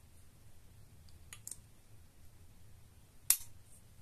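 Handling a glass perfume bottle: a couple of faint clicks about a second and a half in, then one sharp click with a brief hiss about three seconds in as the metal stag-head cap is fitted back onto the bottle.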